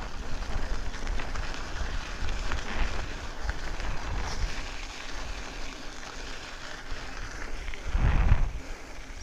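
Wind buffeting the camera microphone over the rolling noise of a 29-inch mountain bike's tyres on a dirt road, with a louder low rumble about eight seconds in.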